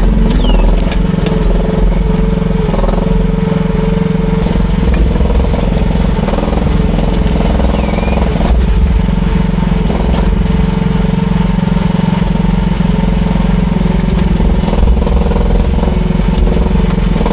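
AGT QK16R mini excavator's small engine running steadily under work.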